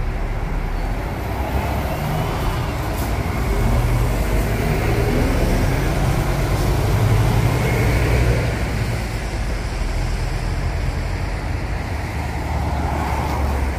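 Motor traffic: a steady low engine and road rumble, swelling slightly in the middle.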